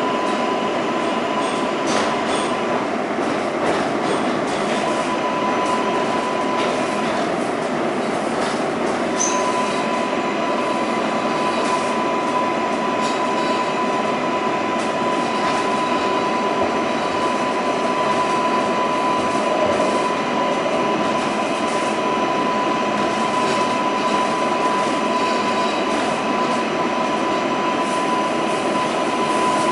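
Kawasaki R188 subway car running at speed through a tunnel, heard from inside the car: a loud, steady rumble of wheels on rail with a steady high whine. The whine drops out briefly twice in the first ten seconds. Scattered clicks come from the track.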